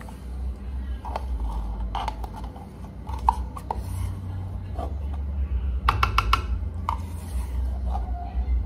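Kitchen handling sounds: scattered clicks, taps and scrapes of utensils and containers being handled on the counter, with a quick run of clicks about six seconds in, over a steady low hum.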